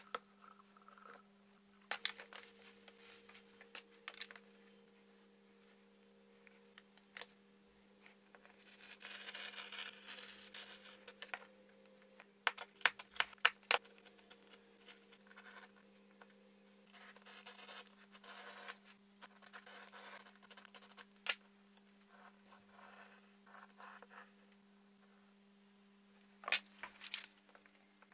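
Hand tools and hands working leather straps on a cutting mat: bursts of scratching and scraping with sharp clicks and knocks between them, over a faint steady hum.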